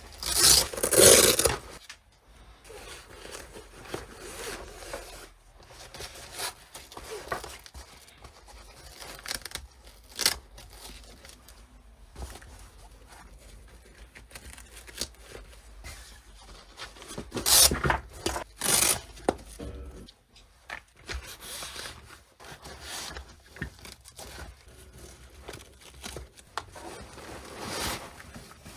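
Padded nylon rifle carrier being handled: its hook-and-loop retention straps rip open loudly about a second in and again around eighteen seconds in, between the rustling and scraping of the fabric panels.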